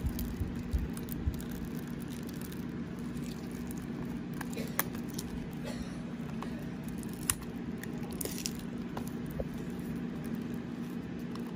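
Fingers picking at the cellophane shrink-wrap on a plastic CD jewel case: scattered small clicks and crinkles, with a brief rustle of the plastic about eight seconds in, over a steady low hum in the background.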